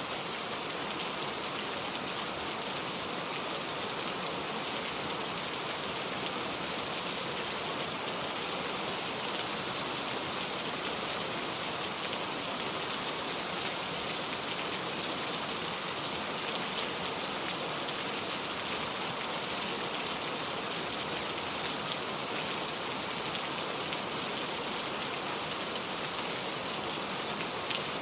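Steady rain falling: a dense, even hiss of drops that does not change, with a few faint drop ticks scattered through it.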